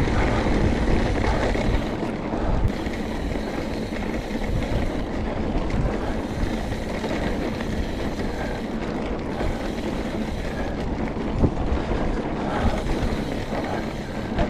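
Trek Remedy mountain bike rolling over bare sandstone rock: steady tyre noise mixed with wind rushing over the chest-mounted action camera's microphone. A few sharp knocks from the bike jolting over bumps come near the end.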